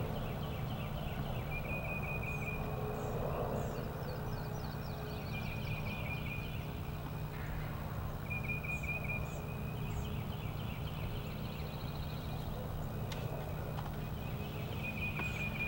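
Springtime field ambience: a songbird's dry trill repeating every few seconds, with other short high chirps, over a steady low rumble.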